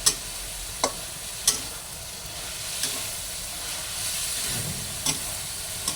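A vegetable stir-fry of soybean sprouts, with a little water added, sizzling steadily in the pan while it is stirred, the utensil knocking sharply against the pan about six times.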